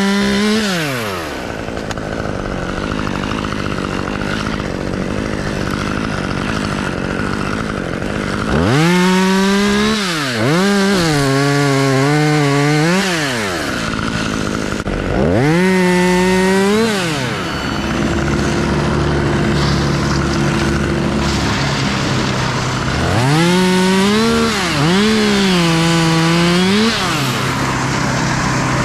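Gas chainsaw throttled up to full revs several times, its pitch sagging and recovering under load as it cuts into the oak, dropping back to a steady idle between cuts.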